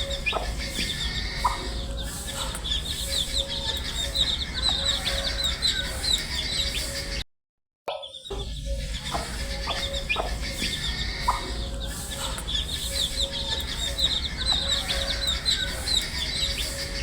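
Baby chicks peeping: a dense flock of short, high chirps overlapping continuously over a steady low hum. The sound cuts to silence for about half a second around seven seconds in, then carries on.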